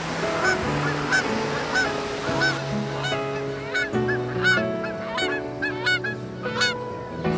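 A flock of birds giving repeated short honking calls, one or two a second, over soft sustained music chords.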